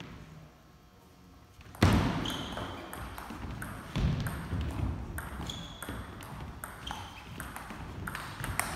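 Table tennis rally: the celluloid ball clicks sharply off paddles and table, several hits at a rally's pace, each with a short high ping ringing in a reverberant hall. The rally opens about two seconds in with a loud knock.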